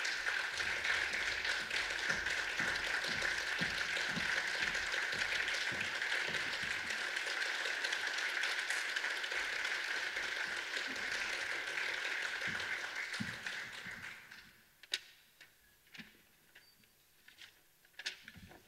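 Audience applauding steadily, dying away about fourteen seconds in, followed by a few scattered clicks and knocks.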